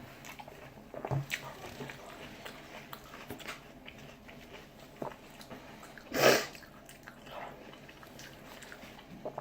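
A person chewing and eating close to the microphone, with small wet mouth clicks and smacks. About six seconds in, one short, loud, breathy burst stands out above the chewing.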